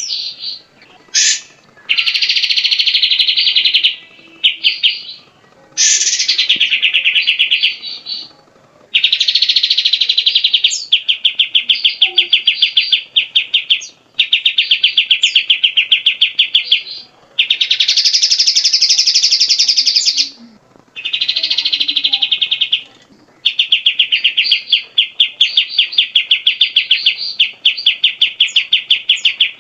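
Cucak jenggot (grey-cheeked bulbul) singing loudly: long strings of fast repeated notes, each string lasting one to four seconds, with short pauses between them.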